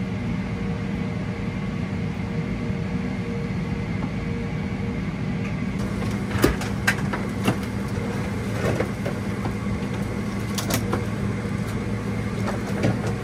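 Boeing 777-300ER cabin noise while taxiing after landing: a steady low rumble with a hum. From about six seconds in, a few sharp clicks and knocks sound over it.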